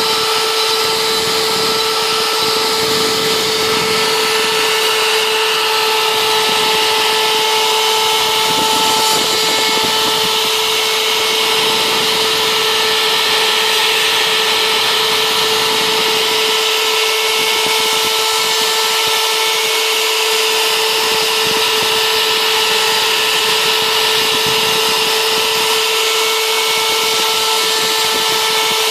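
CNC router spindle running steadily while milling foam: a constant high motor whine over a steady cutting hiss.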